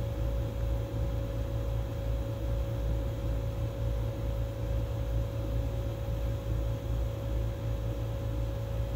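Steady low machine hum with a faint, even higher tone above it.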